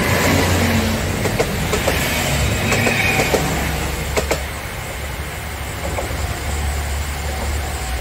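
JR Kyushu KiHa 200 series diesel railcar 'Nanohana' passing close by, its diesel engine rumbling and its wheels clacking over rail joints several times. The sound eases off after about four seconds as the last car goes by and the train moves away.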